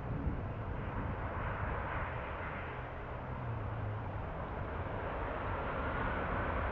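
Four-engine Airbus A340 airliner's jet engines heard during its landing roll-out, a steady rushing noise. A faint rising whine comes in over the last couple of seconds.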